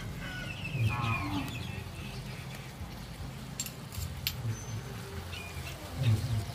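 Thick Coca-Cola sauce boiling around a whole chicken in a pot, with low bubbling plops. A short bird call is heard about a second in.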